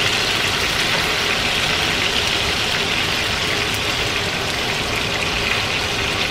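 Boneless chicken thighs in bourbon marinade sizzling steadily in a frying pan, turned down to a lower heat to finish cooking, with a low rumble underneath.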